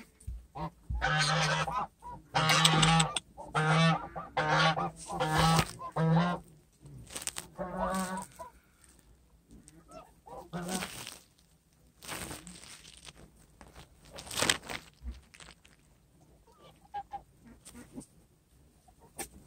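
Pig grunting: a run of six short, evenly spaced grunts in the first seven seconds and another about eight seconds in, followed by scattered softer, shorter sounds.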